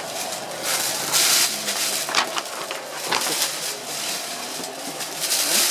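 A printed paper sheet rustling and crinkling as it is picked up and handled, in several short bursts with a few sharp crackles.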